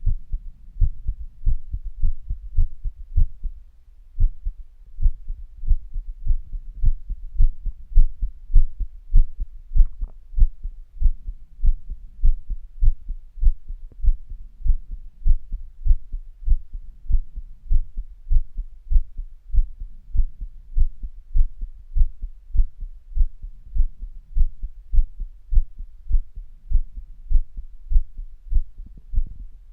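Human heartbeat picked up close, as a steady train of low, even thumps repeating in a regular rhythm.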